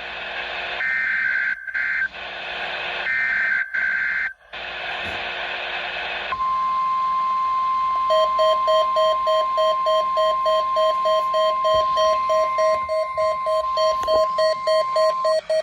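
NOAA Weather Radio test broadcast over a radio speaker: warbling bursts of the digital SAME/EAS header data tones, with short gaps between them. About six seconds in they give way to the steady 1050 Hz weather radio warning tone, which stops shortly before the end. From about eight seconds a second, lower beep pulses rapidly, about two to three times a second.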